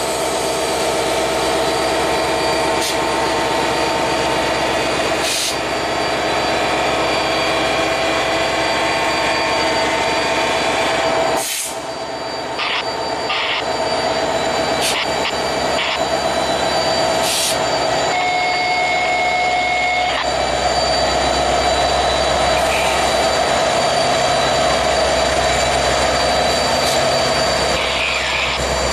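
A pair of EMD SD70ACU diesel-electric locomotives passing close by with their engines running, giving a steady drone, with a few short clicks and a brief steady tone a little past the middle.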